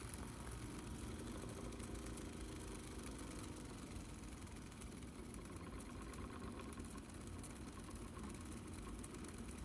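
VHS tape cleaning machine running steadily with a faint hum as it winds a moldy tape past its cleaning cloth.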